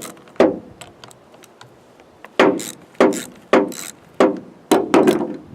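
Sharp knocks from hands-on work on a Poulan Pro chainsaw being taken apart: about eight hits, each with a short ring, two near the start and then a run of about six, roughly two a second, in the second half.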